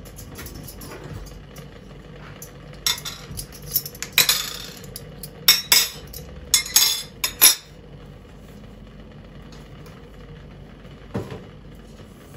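Dishes and cutlery being handled: a run of sharp clinks and knocks in the middle, then quiet room tone.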